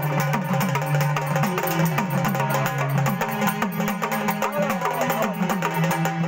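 Marathi gondhal folk music: quick, dense hand-drum strokes over a steady, sustained low melody.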